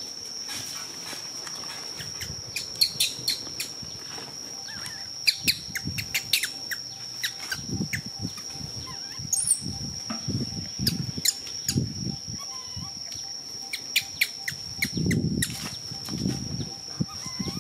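Outdoor ambience: a steady high-pitched whine throughout, with scattered clusters of sharp clicks and crackles and, from about the middle on, irregular low rumbling bursts.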